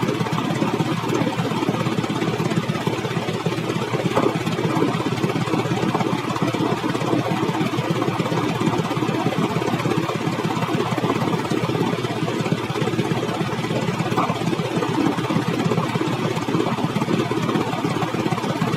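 A vehicle engine running steadily, with an even, rapid pulsing and no revving.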